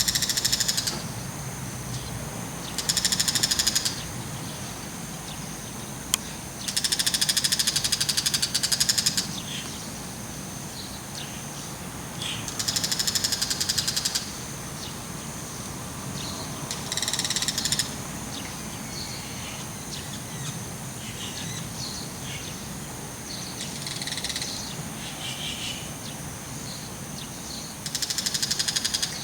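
Bull-headed shrike, a mantis in its bill, giving its harsh, rapid chattering call in bursts of one to two seconds, about six times. Faint steady high insect trilling runs underneath.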